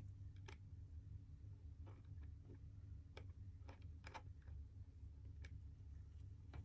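Faint, irregular small clicks of a wristwatch movement being handled and clamped into a metal movement holder, over a low steady hum.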